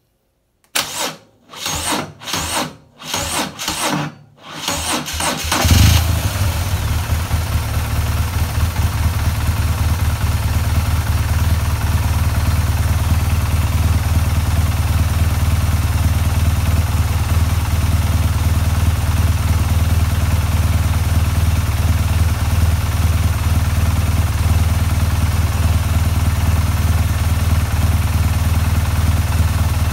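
BMW R1200GS boxer-twin engine cranking slowly and laboriously on the starter, about two compression pulses a second, for about five seconds. It then catches and settles into a steady idle. The battery tests good, so the owner puts the sluggish cranking down to the worn-out Bosch starter motor.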